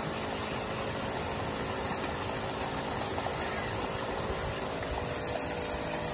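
Double-motor battery knapsack spray pump running steadily, its motor humming as it sprays a jet of water onto a tractor tyre, with a steady hiss of water.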